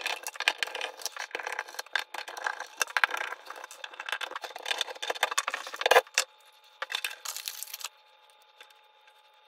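Clicking, scraping and rattling of a screwdriver, screws and a metal-and-plastic switch cover plate as wall light switches are unscrewed and pulled from the box, with a sharp clack about six seconds in. The handling stops about eight seconds in, leaving a faint steady hum.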